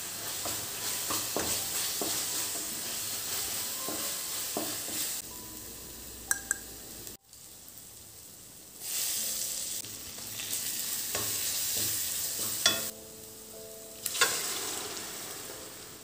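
Spiced masala paste frying and sizzling in a stainless steel kadai while a wooden spatula stirs and scrapes it. The sizzle breaks off at a cut about seven seconds in and returns soon after, and two sharp knocks on the pan come near the end.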